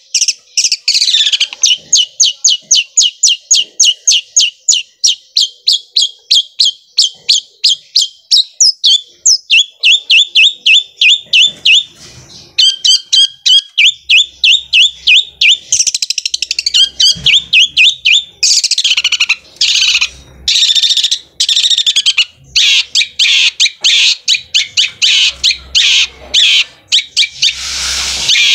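Long-tailed shrike (cendet) in full song: a fast roll of sharp, evenly repeated notes, about five a second, like a sewing machine. About halfway through it breaks into denser, more varied phrases with short pauses.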